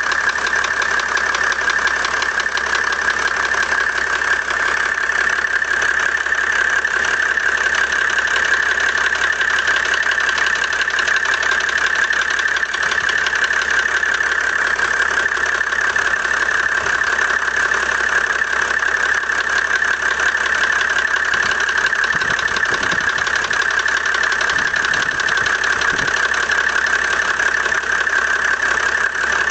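Mercedes-Benz W124 E300 Turbodiesel's straight-six diesel engine idling steadily with a rapid, even ticking. The tick comes on once the engine is hot, and it has persisted after all 12 lifters were replaced and the injectors fixed.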